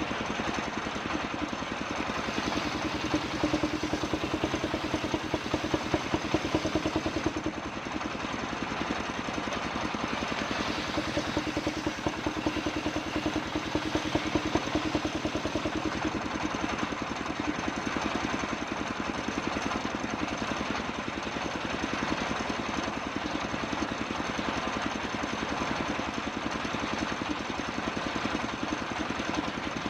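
Engine of a homemade circular saw rig running steadily with a fast, even chugging. A humming tone in it grows louder twice for a few seconds.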